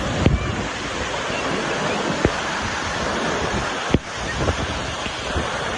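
Waterfall water rushing over rocks: a steady, dense rush of water noise, with a few brief knocks.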